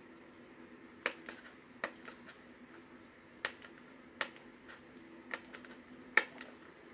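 Fingernails picking and scratching at tape on a small cardboard box, giving irregular sharp clicks and ticks, the loudest about six seconds in.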